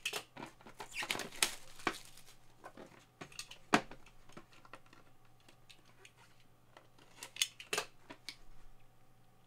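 Plastic shrink wrap being slit with a blade and pulled off a boxed graded trading card, crackling in bursts, with sharp clicks as the box is handled. The sharpest click comes a little before halfway, and another cluster of crackles comes near the end.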